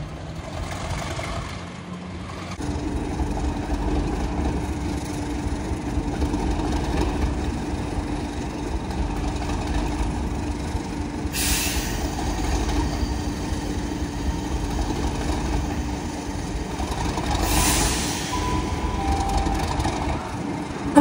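Class 37 diesel locomotive's English Electric V12 engine running at idle with a steady rumble and hum, and two short hisses of air from the brake system, about halfway through and again near the end.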